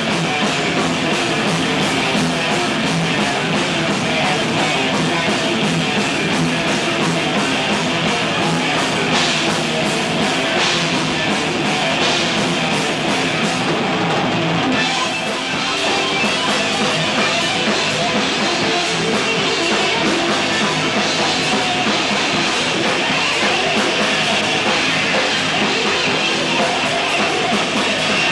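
Thrash metal band playing live: distorted electric guitars, bass guitar and drum kit, loud and dense without a break, thin in the deep bass.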